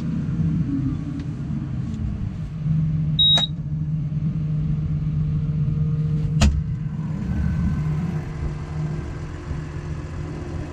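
New Holland T7 tractor engine running steadily, with a short high beep about three seconds in and a sharp click a few seconds later.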